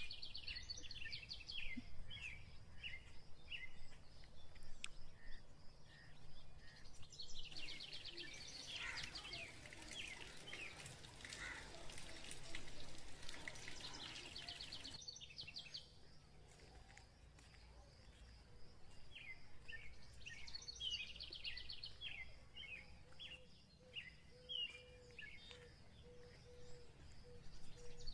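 Small birds chirping in quick repeated calls over a steady high whine and a low rumble. From about 7 to 15 seconds a dense patter of falling rain takes over, then the bird chirps return.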